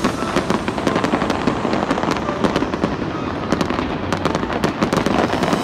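Aerial fireworks bursting in rapid succession: a dense crackle of many sharp pops.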